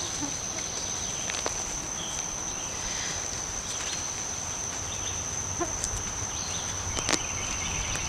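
Gloved hands digging and raking through loose garden soil to unearth potatoes: soft scraping with a few light knocks. A steady high-pitched insect drone runs underneath.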